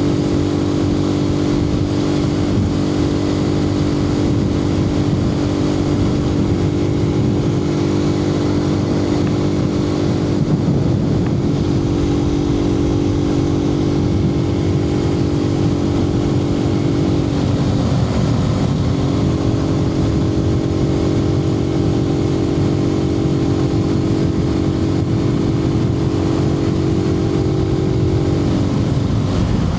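Suzuki TU250X's air-cooled single-cylinder engine running steadily at cruising speed in fifth gear, heard through a microphone inside the rider's helmet with a haze of wind and road noise. The engine note dips briefly a little past halfway, then settles back to a steady pitch.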